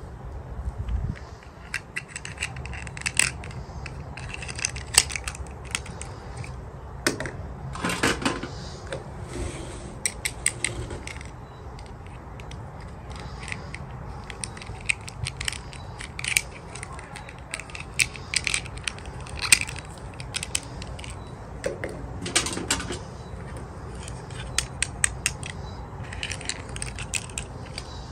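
Small plastic toy parts and packaging being handled: irregular clicks, taps and short crinkles, over a low steady hum.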